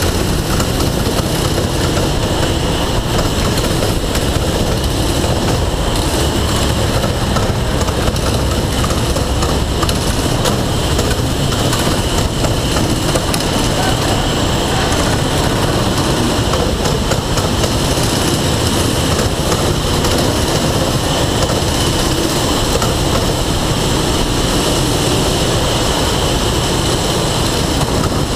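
Go-kart engines running at racing speed, heard from an onboard camera on a kart, with other karts running close alongside: a loud, steady, unbroken engine and road noise.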